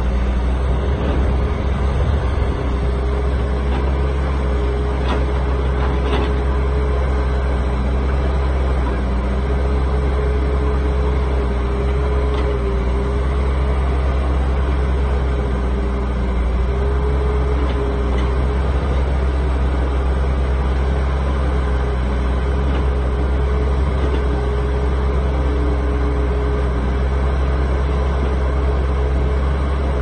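Heavy diesel engines of an excavator and a stuck dump truck running steadily: a continuous low drone with a steady, slightly wavering whine above it.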